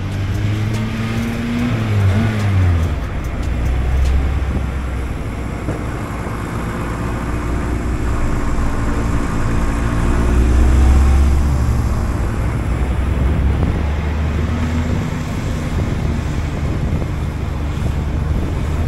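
Car engines running at speed with road and wind noise, picked up by a camera mounted on the outside of a moving car; the engine pitch rises and then drops away about two to three seconds in.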